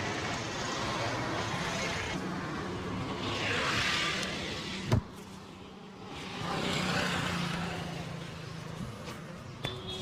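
Street traffic: a steady background of engines and road noise, with vehicles passing twice, each swelling and fading. A single sharp smack comes about five seconds in.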